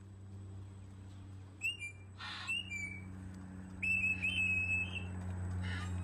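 High whistling in two bouts over a steady low hum: a short phrase of clipped notes about two seconds in, then a longer, mostly held whistle about four seconds in.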